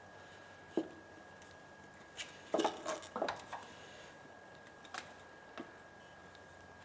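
Light clicks and clacks of a cover being handled and set onto a Rover K-series engine: a few scattered knocks, with a cluster of them about two and a half to three and a half seconds in.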